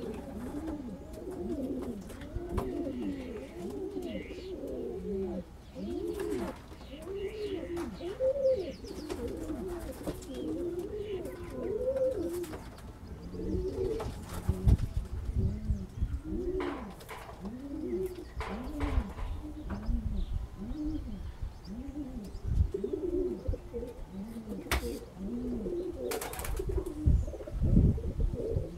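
Several pigeons cooing without a break, overlapping rise-and-fall coos about one or two a second. A few knocks and low thumps break in, the loudest about halfway through and near the end.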